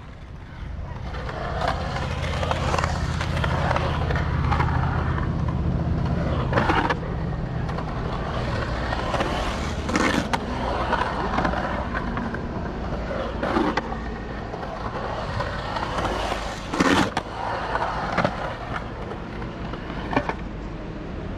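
Skateboard rolling, its wheels rumbling steadily, with several sharp knocks of the board landing or striking every few seconds.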